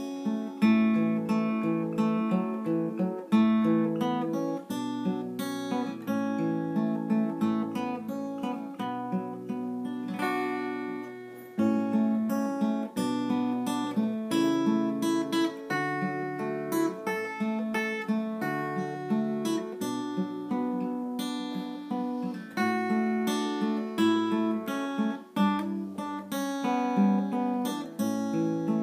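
Black cutaway acoustic guitar with a capo, played fingerstyle: a picked melody over bass notes, with a short lull about eleven seconds in.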